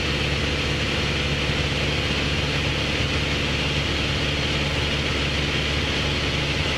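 Light aircraft's engine droning steadily in flight, an even, unchanging hum heard from inside the cockpit.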